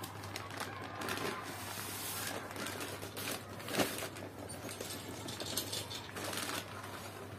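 A large plastic bag of potting soil crinkling and rustling as it is handled, with a sharper knock about four seconds in as the bag is set down on the tiles.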